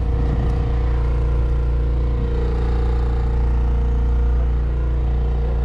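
A fishing boat's engine running steadily, a deep, even hum.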